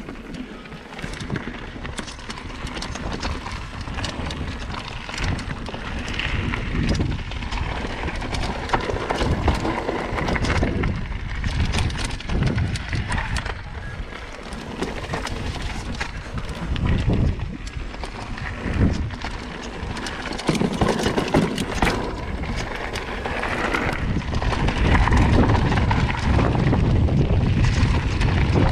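Mountain bike riding down a rocky trail: tyres rumbling over stones and the bike rattling and knocking, with wind buffeting the microphone. It gets louder over the last few seconds.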